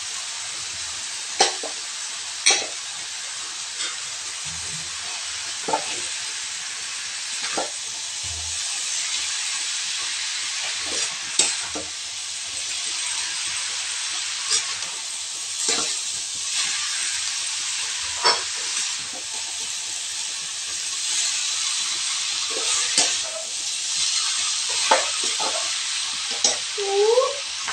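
Chowmein noodles and vegetables sizzling in hot oil in a metal kadai as they are stir-fried, with a metal spatula clinking and scraping against the pan at irregular moments.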